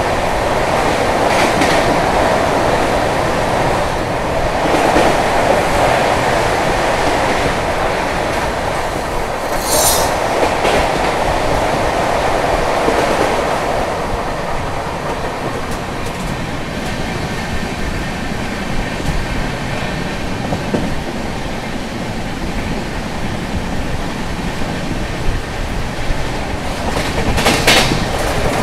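Passenger train running steadily on the rails, with a brief high screech about ten seconds in and a few sharp clanks near the end.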